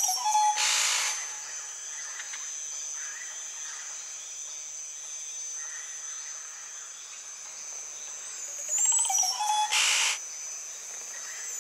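Tropical rainforest ambience: a steady high-pitched insect drone. Near the start and again about nine seconds in, a short rising call and a brief hiss-like burst are heard.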